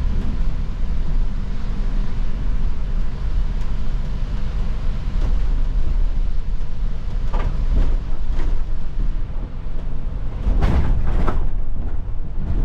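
Inside an Iveco Crossway city bus under way: a steady low rumble from the engine and drivetrain with tyre noise on a wet road. A few brief swishes come about seven to eight seconds in and again near ten to eleven seconds.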